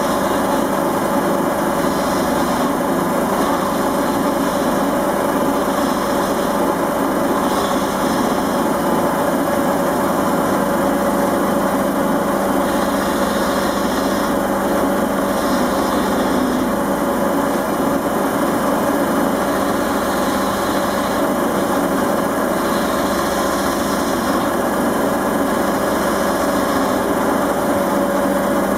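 Einhell wood lathe running steadily while a gouge cuts a spinning beech blank. A steady motor hum runs underneath, and the tool's higher cutting noise comes and goes every second or two.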